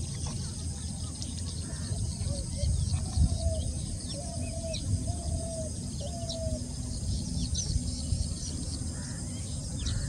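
Outdoor pond ambience: small birds chirping here and there against a steady low rumble on the microphone, with four short, slightly falling low calls near the middle.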